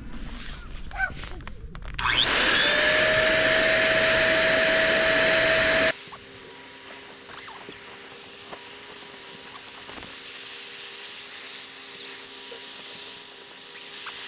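Electric compression-bag vacuum pump (Q-PON) drawing the air out of a storage compression bag. It starts about two seconds in with a loud, steady whine. About six seconds in it turns abruptly quieter and keeps running with a thin high whine.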